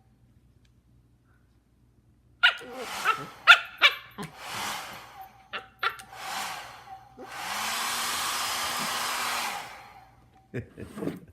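A hair dryer is switched on in short blasts and then runs for about two seconds, its motor spinning up and winding down. Between and after the blasts a husky makes short, sharp vocal sounds. The first two seconds are near silence.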